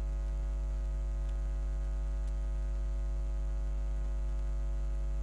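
Steady electrical mains hum picked up by the recording: a low, unchanging buzz with many even overtones.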